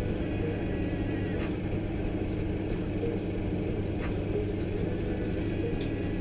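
Steady low machine hum and rumble, with a few faint clicks.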